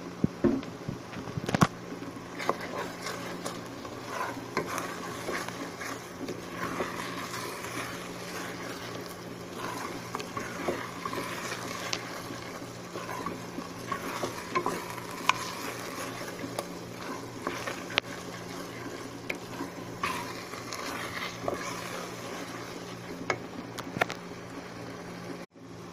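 A wooden spoon stirring finely chopped onions in a metal pot, with frequent short scrapes and knocks against the pot over a soft sizzle. The onions are being dry-cooked without oil, the first stage of doro wet.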